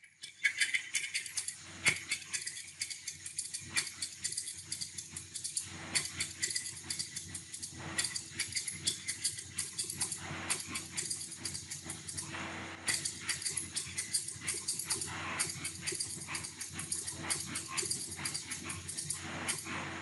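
Typewriter sound effect: rapid, continuous clacking of typewriter keys, many strikes a second, with a few brief breaks between runs of typing.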